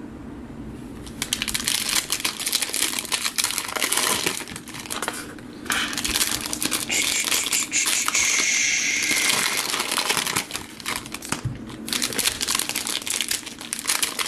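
Foil trading-card pack wrapper being torn open and crinkled by hand: a dense crackling that starts about a second in, with a couple of brief pauses.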